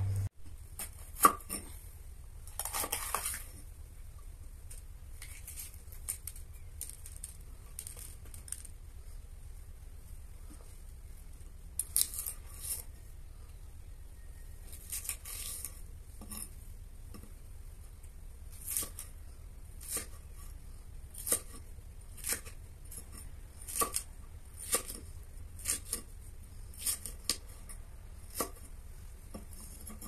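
Kitchen knife striking a wooden chopping block as raw chicken and then green pepper are cut: scattered sharp knocks, turning into strokes about once a second in the second half.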